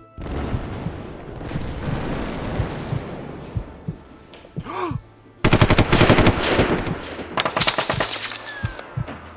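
War-film battle sound: a dense rumble for about four seconds, then rapid bursts of machine-gun fire, one from about five and a half seconds and a second shortly after. A thin falling whistle comes near the end.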